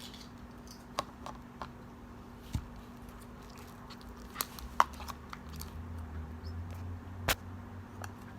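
Glue slime being worked with activator in a container: quiet sticky squishing with a few sharp clicks, the loudest about five and seven seconds in.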